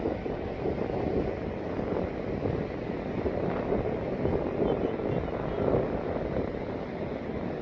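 Wind buffeting the microphone: a rushing, rumbling noise that swells and eases in gusts.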